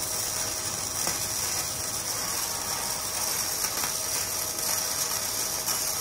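MIG welding arc crackling steadily as a bead is pulled along thin box-section steel, from a Fuji MIG 252 Pro welder.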